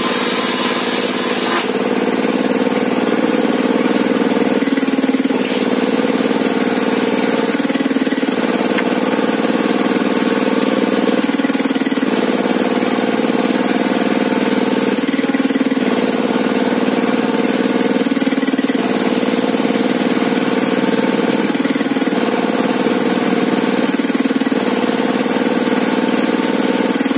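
Engine of a sawmill's table saw running steadily, its tone shifting slightly every few seconds.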